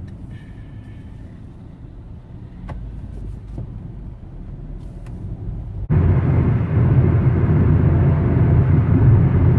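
Road and engine noise inside a moving car's cabin: a low, fairly quiet hum, then, about six seconds in, a sudden jump to much louder road noise that holds steady.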